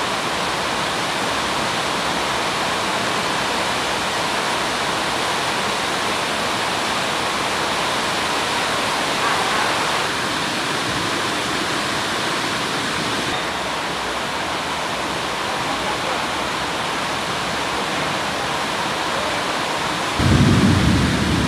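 Steady industrial rushing noise of an aluminium smelting shop, even and unbroken with no distinct knocks; near the end a louder, deeper rumble comes in suddenly.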